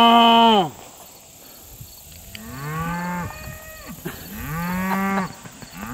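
Cattle mooing: a long moo tailing off about half a second in, then two more long moos, each rising in pitch at the start and dropping away at the end.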